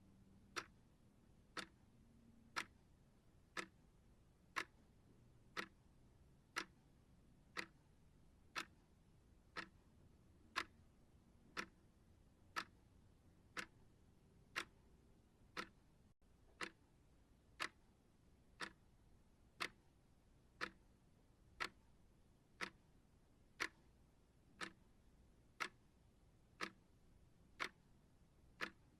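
Clock ticking steadily, one short sharp tick each second, with near silence between ticks.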